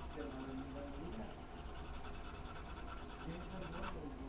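Colored pencil scratching across paper in many short shading strokes, with a faint voice in the background.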